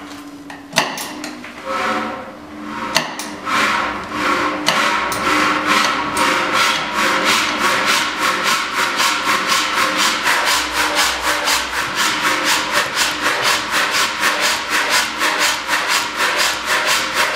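1923 Vulkan pneumatic power hammer, a 300 kg ram machine, starting up: a few single knocks, then from about three seconds in its ram strikes in a fast, even rhythm over a steady hum from the machine.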